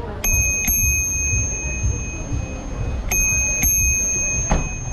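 Bicycle bell rung with two quick double dings, one pair near the start and another about three seconds in. Each strike leaves a clear, high, lingering ring.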